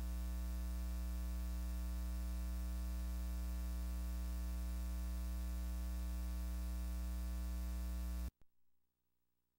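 Steady electrical mains hum and buzz in the audio line, with many overtones and a hiss. It cuts off suddenly about eight seconds in, with a faint click, leaving near silence.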